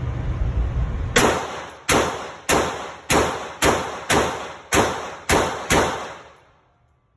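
Spikes Tactical AR-15 rifle with a 16-inch barrel firing nine shots in semi-automatic fire, about two shots a second. The first shot comes a little over a second in, and each report rings out briefly before the next.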